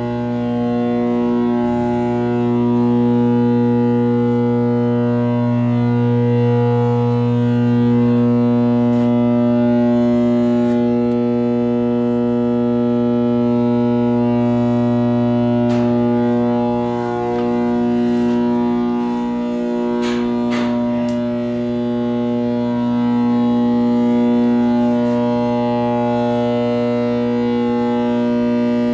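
Steady drone of a ship's engine-room machinery, a deep hum with several steady overtones above it. A few short metallic clicks come about halfway and again about two-thirds of the way through.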